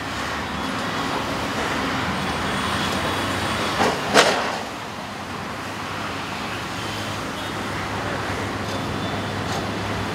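Steady road traffic passing close by, with a low engine hum underneath. A short, sharp knock stands out about four seconds in.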